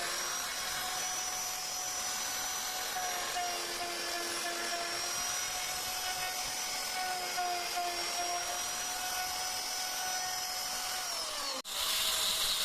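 Electric power tool used for woodcarving, running steadily with a high whine over a cutting hiss. Near the end its pitch slides down, and then the sound cuts off abruptly.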